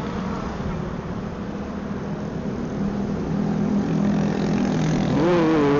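Motorcycle engine running steadily while riding, under a steady wind rush. Near the end a louder engine note jumps up in pitch and then slowly falls.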